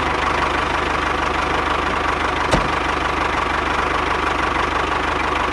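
Small electric motors of a miniature DIY model tractor and belt-driven mini flour mill running steadily, a fast, even buzzing whir with a steady high whine. A single sharp click about two and a half seconds in.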